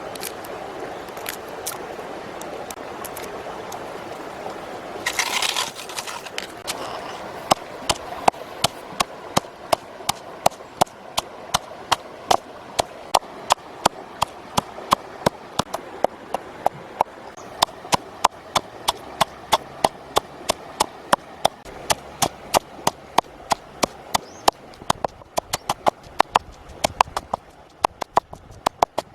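Rapid, evenly spaced sharp knocks, about three a second, starting several seconds in and keeping on, over a steady background hiss.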